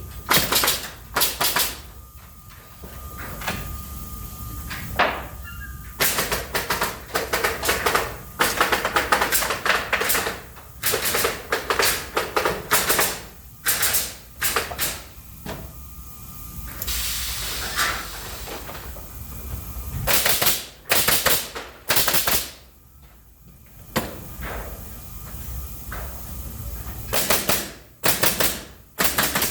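Pallet machine working: clusters of rapid sharp bangs repeating every second or two, with stretches of hissing noise between them.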